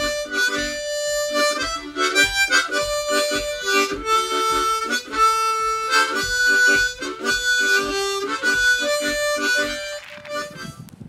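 Background music: a harmonica playing a tune in chords over a steady low pulse, fading out near the end.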